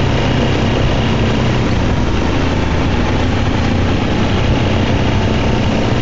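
ATV engine running steadily at cruising speed, mixed with an even rush of tyre and wind noise on a gravel road.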